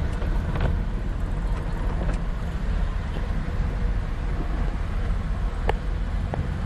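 Steady low rumble of a car driving through flood water in heavy rain, heard from inside the cabin, with a hiss of water and rain over it and a few sharp ticks.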